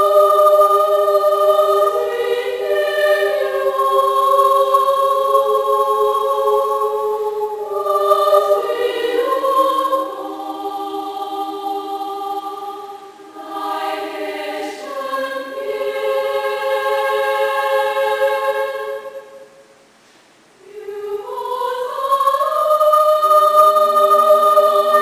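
Children's choir singing a local folk song, holding long notes that step from pitch to pitch. The singing stops for a brief pause about twenty seconds in, then comes back in on rising notes.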